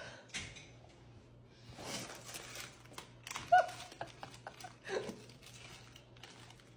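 A sleeping dog making noises in its sleep: a string of breathy snorts and snuffles, with a sudden short squeaky whimper about three and a half seconds in, the loudest sound.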